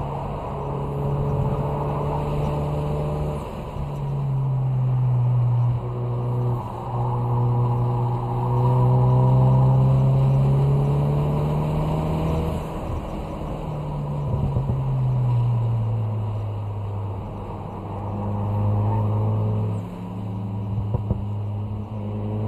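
Ford Focus RS's 2.3-litre turbocharged four-cylinder engine running hard at track speed, heard from inside the cabin. Its note rises and falls several times as the driver goes on and off the throttle.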